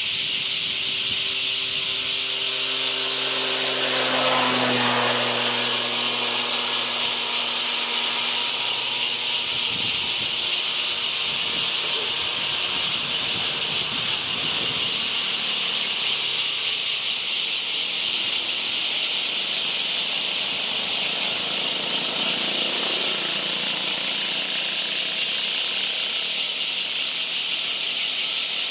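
Takasago bear cicadas (Cryptotympana takasagona) calling in a loud chorus, one continuous high buzzing hiss without breaks.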